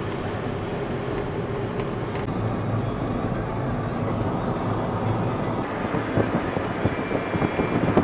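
Car interior noise while driving at road speed: a steady rumble of engine and tyres on the asphalt, turning gustier and more uneven near the end as wind buffets the microphone.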